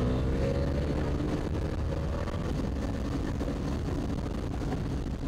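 Motorcycle engine running while riding, its note rising slightly at first and then holding steady, with wind and road noise on a helmet-mounted microphone.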